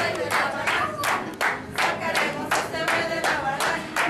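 Rhythmic handclaps, about three a second, steady throughout, with a sung tune underneath.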